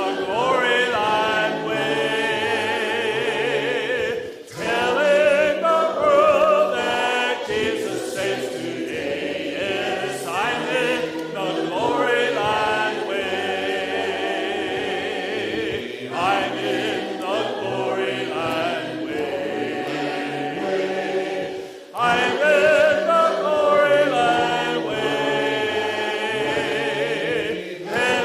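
A worship song sung by several voices over instrumental accompaniment with a moving bass line, in phrases with brief pauses between them.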